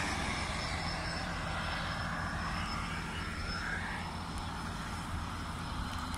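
Steady low rumble of motor traffic on the road, with a vehicle going by that falls in pitch and fades about four seconds in.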